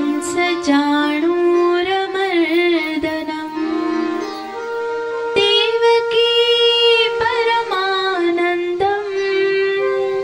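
Indian classical dance music: a sung melody with long held notes and wavering, ornamented pitch bends over a steady drone, with a few sharp percussive strokes.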